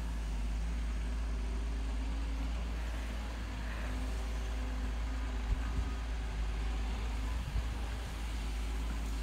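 Wheeled excavator's diesel engine running steadily while it works, with two brief knocks in the second half.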